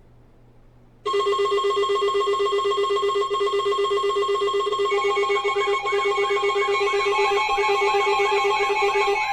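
Electronic music starting abruptly about a second in: steady synthesized tones over a fast pulsing low note, with a repeating warbling figure coming in about halfway through.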